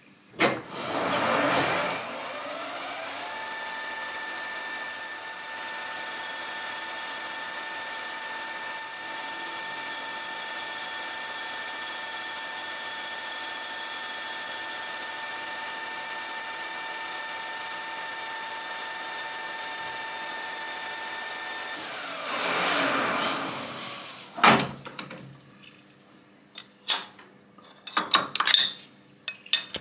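Metal-working lathe spindle speeding up with a rising whine, then running steadily with a constant gear whine for about twenty seconds, then spinning down with a falling whine. A few sharp metallic clicks follow near the end as the steel nut is handled on its stud.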